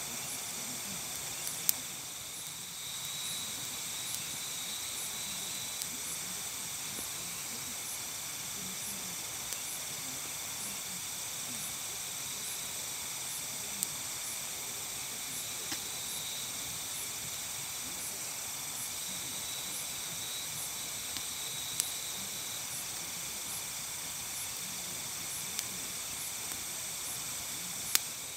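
Steady night chorus of crickets and other insects, with one high chirp repeating a little more than once a second. A wood campfire gives occasional sharp pops and cracks, the loudest about two seconds in and near the end.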